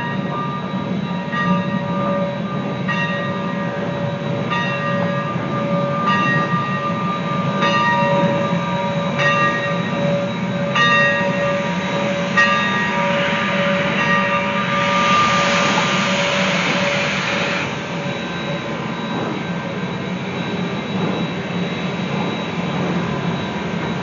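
Western Pacific steam locomotive #165 standing with its bell ringing, one stroke about every second and a half, over a steady low rumble and a steady tone. The bell stops about twelve seconds in, and a burst of steam hiss follows for about three seconds.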